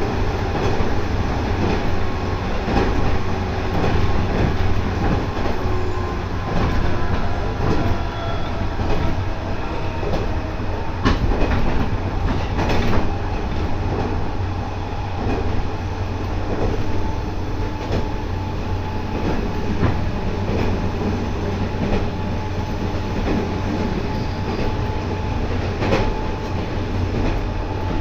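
JR West 213 series electric motor car (KuMoHa 213-6) running at full speed, heard from inside the car: a steady rumble with a motor whine, and wheels clicking over rail joints at a steady rhythm.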